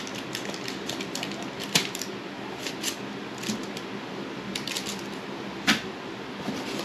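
Pocket knife slitting open a paper envelope: scattered sharp clicks and crackles of the blade and paper, with two louder clicks near 2 seconds and near 6 seconds.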